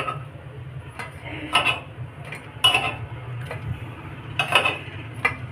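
Metal spoon clinking and scraping against an appe pan and a steel plate as cooked besan dumplings are lifted out one at a time, with a clink every second or so over a steady low hum.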